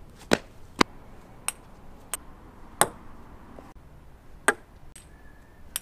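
A string of about eight sharp knocks and clacks, unevenly spaced, as thrown soda containers strike and land during trick shots. The sound cuts off abruptly at the very end.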